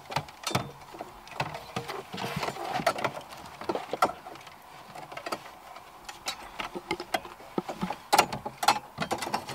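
Aftermarket car head unit being pushed and worked into the dashboard slot, giving irregular clicks, knocks and scrapes with rustling as the bunched wiring is forced in behind it.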